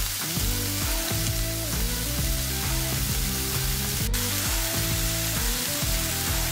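Diced pork foreleg sizzling as it fries in a pan, a steady hiss with a brief break about four seconds in, over background music.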